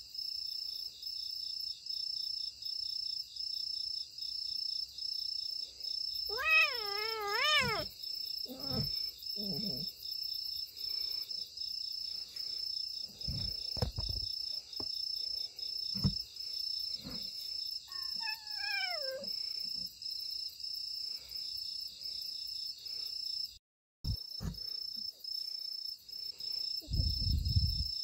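A young cat meows twice: one long wavering meow about seven seconds in and a shorter meow falling in pitch near twenty seconds in. Crickets chirp steadily in a pulsing rhythm throughout, with a few low thumps of handling.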